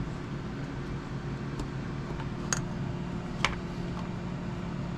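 Small parts clicking as a generator motor is worked into a model helicopter's frame, with two sharper clicks about a second apart midway, over a steady low hum.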